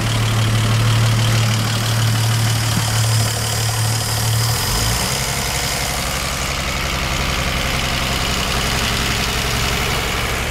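Original Gray Marine 140 flathead six-cylinder engine of a 1954 Century Resorter speedboat idling smoothly in neutral, purring. A steady hum gives way to a lower, even pulsing about four and a half seconds in.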